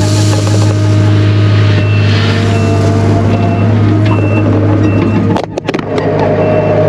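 Takeuchi TL240 track loader's diesel engine running steadily under throttle, with its backup alarm beeping about once every 0.8 seconds as the machine reverses. The sound dips out briefly about five and a half seconds in.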